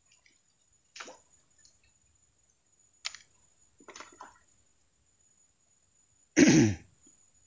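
Fishing rig being cast out: small splashes and plops as the baited line swings out and lands in the river, with a sharp click about three seconds in and a louder short low thump near the end.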